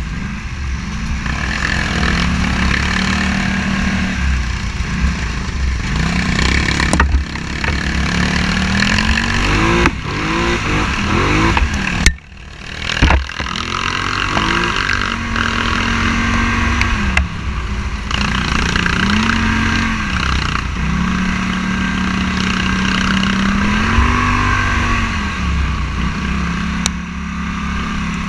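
Scrambler motorcycle engine running under way, its pitch rising and falling again and again as the throttle opens and closes, over a steady low rumble. A sharp knock comes about twelve seconds in, followed by a brief drop in engine sound.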